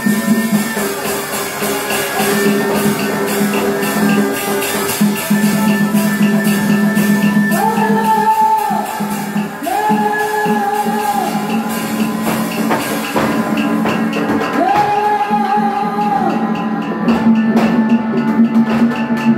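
Traditional Vietnamese Tuồng theatre music: drum and percussion strokes over a sustained drone, with three long held higher notes from about the middle on.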